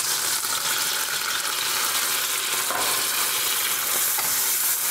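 Garlic and anchovy frying in hot olive oil in a steel pan, a steady sizzle, as whole tomatoes go in and are stirred with a wooden spoon.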